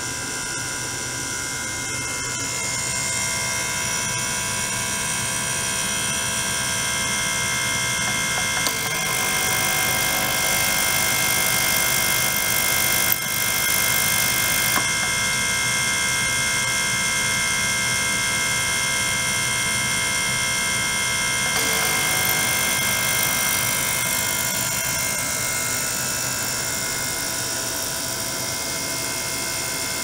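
Ultrasonic cleaner running with water in its steel tank: a steady, loud buzzing hum made of many held tones with a hiss on top. Its tone shifts several times, growing brighter about nine seconds in and settling back near twenty-two seconds.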